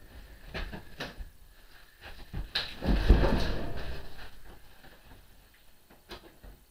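Wooden shipping crate being lifted and shifted by hand: a few knocks of wood, then a loud scraping clatter about three seconds in that dies away over a couple of seconds, and one more knock near the end.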